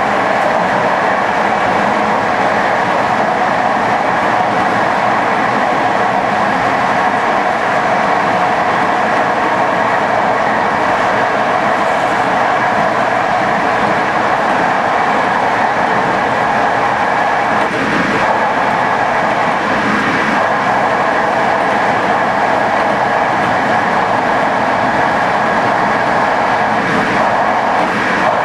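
Passenger train running along the track: steady running noise of wheels on rails, with a few faint knocks about two-thirds of the way through.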